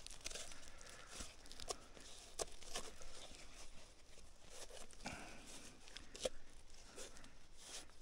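Faint, scattered scrapes and clicks of hands handling and turning over a rusted, dirt-caked 47-round machine-gun disc magazine just dug from the ground.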